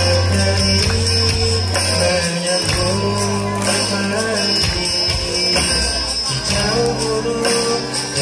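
Music: a song with singing over held bass notes and a steady beat.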